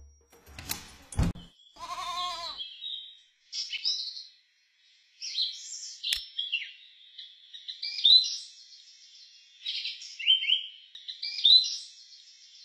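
A sharp hit about a second in, then a goat bleating once with a wavering call. From about three and a half seconds on, birds chirp in short repeated phrases of quick falling notes.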